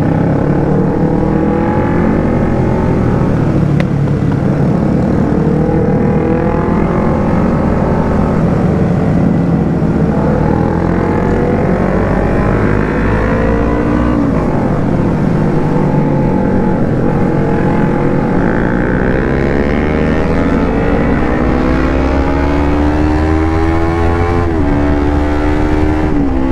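Yamaha R25's 250 cc parallel-twin engine accelerating hard through the gears. Its pitch climbs several times and drops at each upshift, over steady wind rush.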